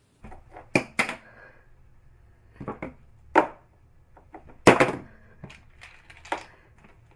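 Irregular sharp knocks and clatters of small hard objects on furniture, a few loud ones among lighter taps: a mobile phone being set down and pushed about on a hard tabletop.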